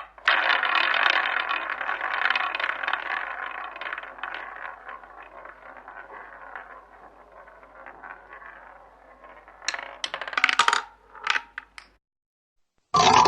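Roulette ball spinning around a roulette wheel: a dense rolling rattle that fades as the ball slows. About ten seconds in come a few sharp clatters as the ball drops and settles in a pocket.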